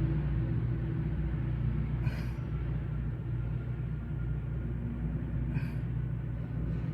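Steady low rumble of a MARC MP36 diesel locomotive running at the platform, easing slightly in loudness, with two faint short hisses.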